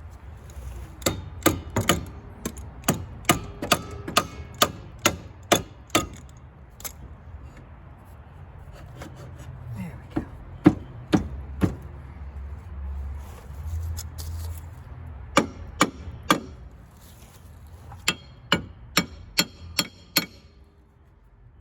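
Hammer blows on metal, each with a short metallic ring, struck in runs of quick, even blows: about a dozen at roughly two a second, then a few shorter groups, and a final run of about six.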